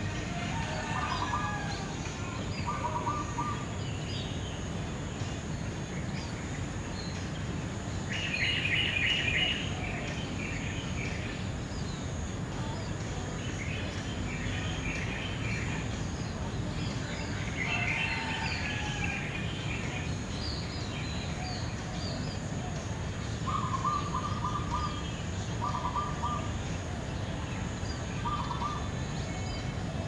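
Early-morning birds calling in short, repeated trilled phrases: the loudest, higher-pitched bursts come about 8 seconds in and again around 14 and 18 seconds, with lower-pitched short trills near the start and in the last several seconds. A steady low rumble runs underneath.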